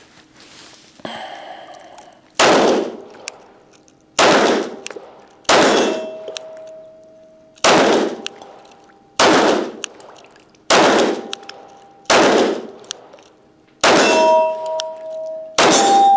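Arex Delta Gen 2 pistol fired nine times at a slow, even pace, about one shot every second and a half, still working after being buried in mud and water. Several hits set steel targets ringing, most plainly near the end.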